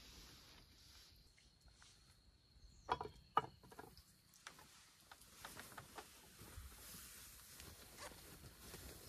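Quiet night-time forest: a faint steady high insect chirr under scattered small clicks and rustles, with two sharper clicks about three seconds in.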